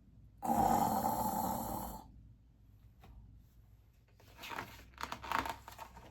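A person imitating a snore with her voice: one long, loud snore lasting about a second and a half, then quieter, rough noises about four seconds in.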